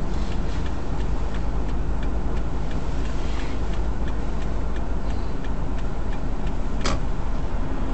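Steady road and engine rumble heard inside a moving vehicle through a dashcam microphone, with a light regular ticking over it.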